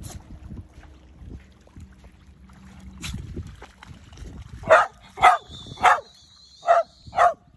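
A dog barking five times in quick succession, starting about two-thirds of the way in, after a few seconds of low wind and water noise.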